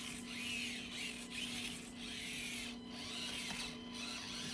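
Axial SCX24 Deadbolt 1/24-scale RC crawler's electric motor and gearbox whining, rising and falling in pitch in short spurts as the throttle is worked.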